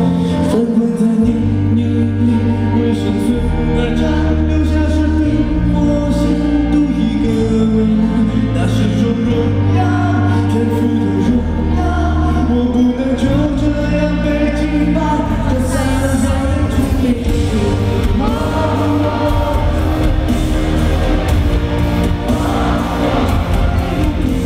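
Live pop song at an arena concert: a male singer sings into a handheld microphone over an amplified band or backing track with a heavy bass, recorded from within the crowd. About two-thirds of the way through, the accompaniment gets busier.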